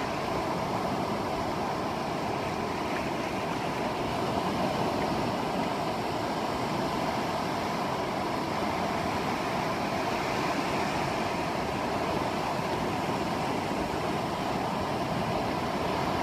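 Steady rush of ocean surf and wind on the beach, with no distinct breaks or events.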